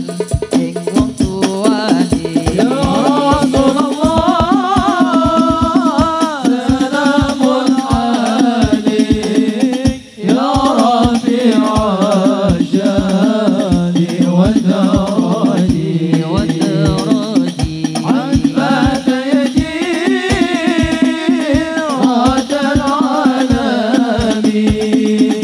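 Sholawat (Islamic devotional song) sung to a fast, steady percussion beat, with a brief break about ten seconds in.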